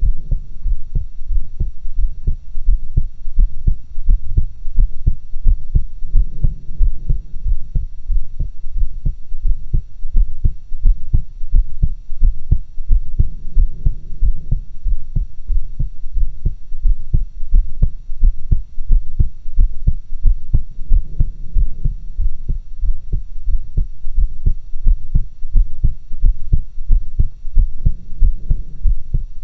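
A woman's heartbeat heard through stethoscopes and recorded in stereo: a steady, unbroken run of short, low thumps.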